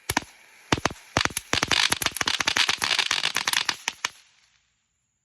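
Cheap consumer firework going off: a rapid string of sharp cracks and crackling pops, densest two to four seconds in, that stops abruptly a little after four seconds.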